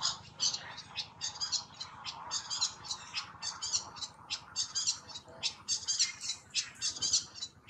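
A run of short, high chirping animal calls, about four a second, keeping up without a break.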